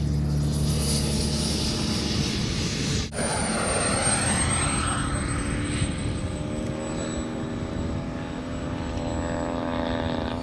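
Turbine engines of radio-controlled model jets running at low power on the ground: a steady rushing hiss with a high-pitched whine. The sound changes abruptly about three seconds in, and after that the whine slowly falls in pitch.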